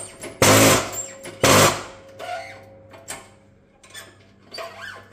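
Shop press working in four short bursts of noise, about a second apart, as a new tapered roller bearing (LM48548) is pressed onto a transfer-case gear. Light metallic clicks and knocks follow as the part is handled.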